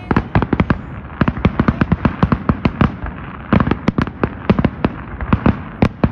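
Fireworks display: aerial shells bursting in a rapid run of sharp cracks and bangs, several a second, with a short lull about three seconds in.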